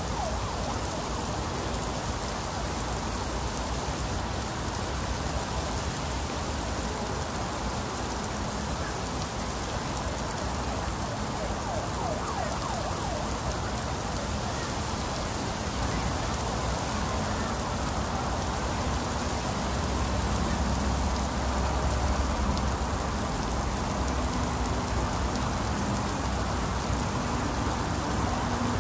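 Heavy rain falling steadily, a dense even hiss of rain on the ground, roofs and leaves.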